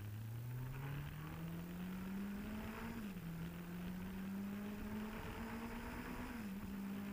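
Suzuki GSX-R motorcycle engine accelerating. The engine note climbs, drops sharply at a gear change about three seconds in, climbs and holds, then drops at another upshift near the end. It is heard muffled through the rider's helmet Bluetooth microphone.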